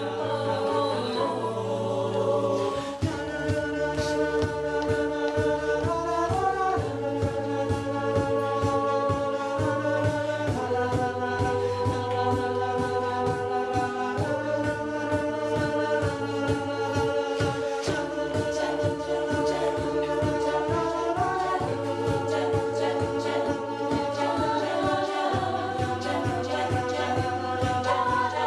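Vocal group singing a cappella: held chords in close harmony that change every three to four seconds, over a pulsing bass line with a steady percussive beat.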